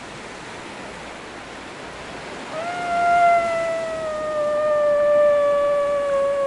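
A long, drawn-out "Ahhh" cry that starts about two and a half seconds in and sinks slowly in pitch, over small waves washing on a sand beach.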